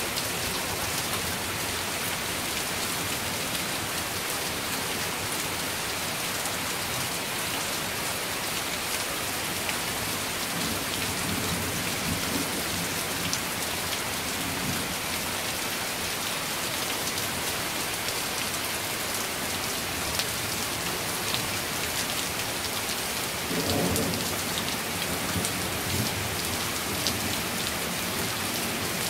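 Heavy rain pouring steadily, with low rumbles of thunder about ten seconds in and a louder roll of thunder about twenty-four seconds in.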